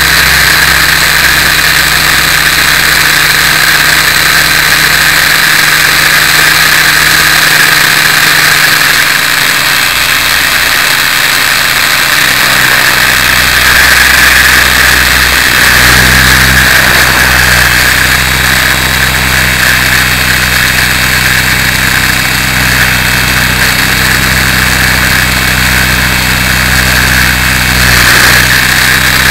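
Electric Align T-Rex 700E RC helicopter in flight, heard from a camera mounted on the machine: a loud, steady whine of the motor and drive gears over a low rotor hum. The deeper hum changes pitch about halfway through.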